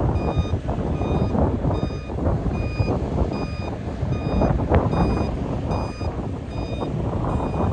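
Reversing alarm beeping in an even repeated pattern over the loud, steady running of a heavy machine's diesel engine, typical of a road roller backing up.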